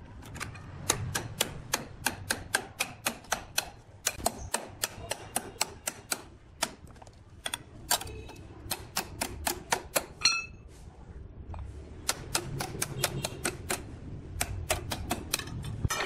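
Quick, sharp taps in irregular runs of several a second, as of light hammering or tapping on the log, with short breaks about four, six and eleven seconds in.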